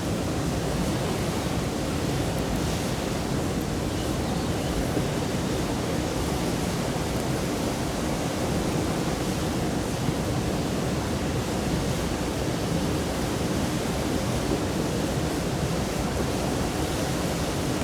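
Mountain stream flowing steadily over rocks, an even rushing of water without a break.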